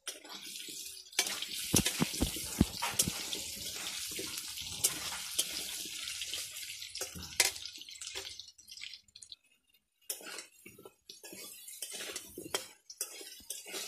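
Potato chunks frying in hot mustard oil in a kadai, a steady sizzle, with a spatula knocking and scraping against the pan as they are stirred. The sizzle fades a little past halfway, and scattered scrapes and clinks follow.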